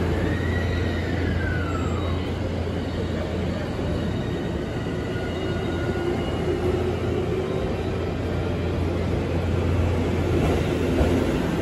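Train running sound, from a recording of a real JR E257 series electric express train: a steady rumble with a whine that rises and then falls away over the first two seconds.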